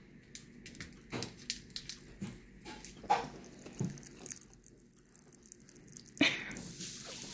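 Popping candy crackling in a mouth: irregular small sharp pops and clicks, with a louder one about six seconds in.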